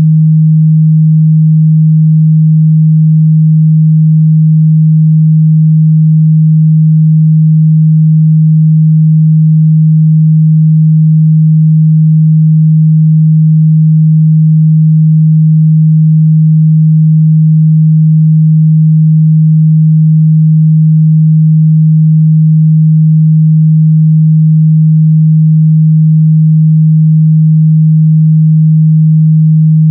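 A continuous, steady 157 Hz sine-wave test tone, loud and unchanging in pitch and level.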